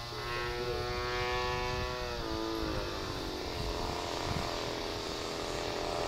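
Radio-controlled model airplane's motor and propeller droning in flight, its pitch dropping about two seconds in and then holding lower.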